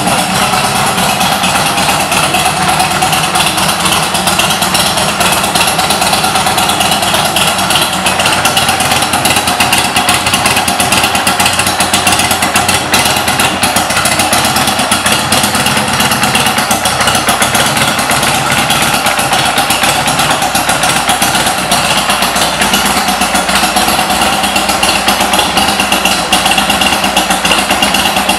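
Buell XB12Ss motorcycle's air-cooled 1203 cc V-twin engine idling steadily, with an even, rapid pulsing beat.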